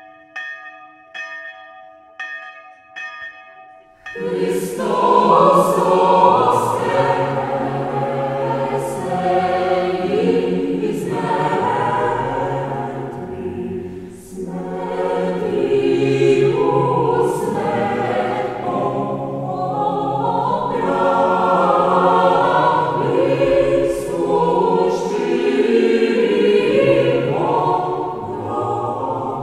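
Church bells ringing faintly for a few seconds, several strokes, then a church choir breaks in loudly, singing a hymn.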